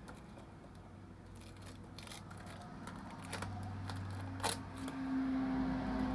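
Scattered sharp clicks and taps of small hand tools working on a phone, with one louder snap about four and a half seconds in, over a steady low hum that grows louder near the end.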